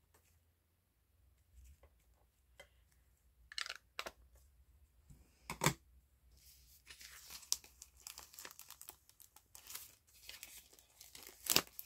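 A few sharp clicks and taps, then, from about halfway, a dense scratchy rustle: an ink stamp pad being rubbed and dabbed across paper to colour it.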